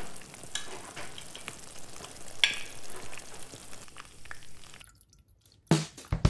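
Fish curry sizzling in the pot: a steady crackling hiss with scattered small pops. It cuts off about five seconds in, and near the end come two sharp splashes as water is tipped from a cup into a stainless-steel bowl.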